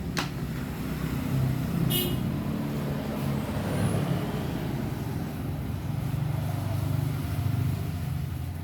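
An engine running steadily with a low hum, a little louder after the first second, and one sharp click just after the start.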